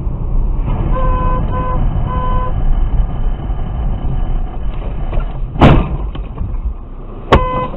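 Steady low road and engine rumble inside a car, with three short beeps about a second in. About five and a half seconds in, the car slides off a snowy road and hits a steel lattice electricity pylon with one loud crash. A sharp knock and a brief beep follow near the end.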